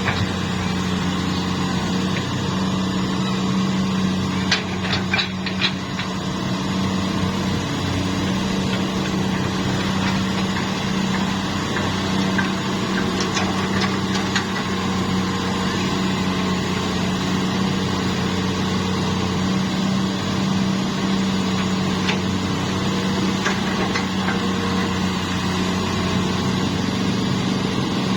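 Hitachi hydraulic excavator's diesel engine running steadily, with a cluster of short knocks about five seconds in and again around thirteen to fourteen seconds in.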